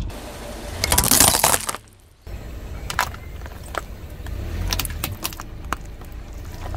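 Hard plastic toy pieces crunching and crackling loudly for about a second under a car tyre. After a short gap, a car tyre slowly rolls over plastic tubs of slime and putty, with a few sharp cracks as the plastic breaks.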